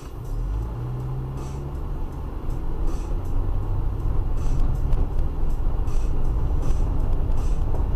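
A car being driven, heard from inside: a steady engine and road rumble that grows louder as it picks up speed, with a brief rising engine note near the start and a faint tick about every second and a half.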